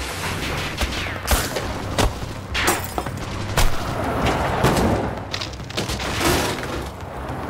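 Gunfire in a shootout: many shots in quick succession, with several louder bangs among them.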